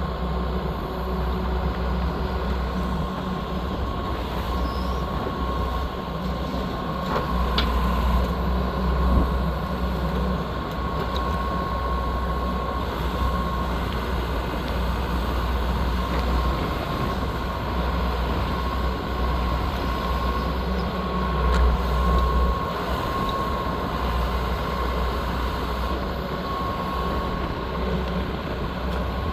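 Hitachi EX120 excavator's diesel engine running steadily with a steady whine above the engine note, swelling briefly in level twice.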